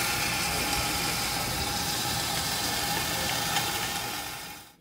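Burgers sizzling on a hot Blackstone griddle: a steady frying hiss with faint crackles, fading out near the end.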